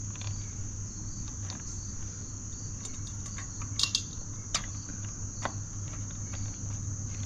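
Crickets trilling steadily over a low hum, with a few light clicks in the middle.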